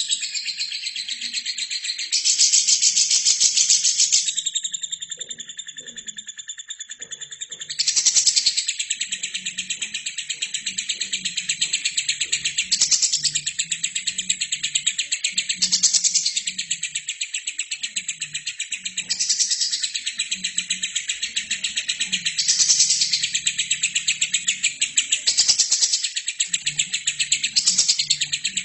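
Albino lovebird singing: a continuous, very fast, high-pitched chattering trill that swells louder every few seconds.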